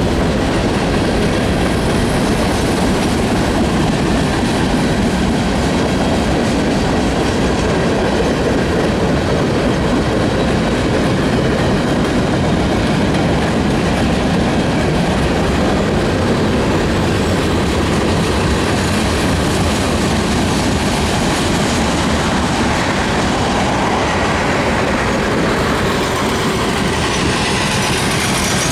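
Freight cars of a long Norfolk Southern freight train rolling past, with a steady rumble of steel wheels on rail and a clickety-clack over the joints.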